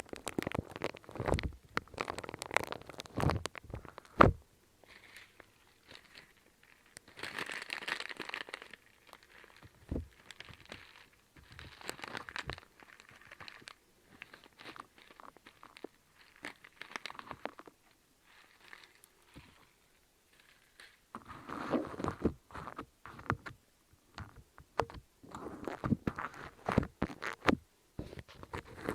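Close-up ASMR trigger sounds: irregular crunching and crinkling with sharp clicks and scrapes, coming in uneven bursts separated by short pauses.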